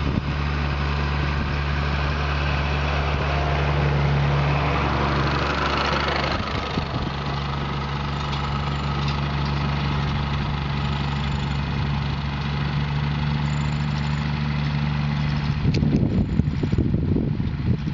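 Farm machine's diesel engine running steadily, with a rising rush of noise about four to six seconds in. Near the end, wind buffets the microphone.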